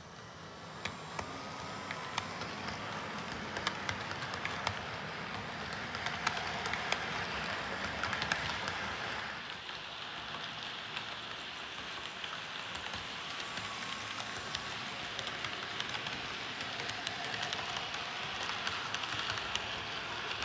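H0-scale model train with an M41 diesel locomotive model running along the track, its wheels and motor making a steady rattling hiss dotted with small irregular clicks. It grows louder over the first couple of seconds as the train pulls away.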